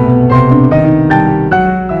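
Keyboard playing worship music: held chords with a melody above them, new notes struck about twice a second.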